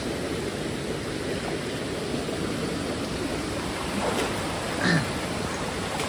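Rushing stream water cascading over rocks in a steady roar. A brief human voice sound comes about five seconds in.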